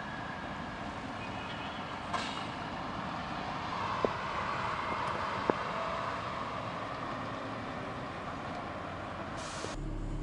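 Town traffic noise at night, a steady wash that swells and fades in the middle, with two short clicks. Near the end it gives way to the low steady hum of a car's idling engine heard from inside the cabin.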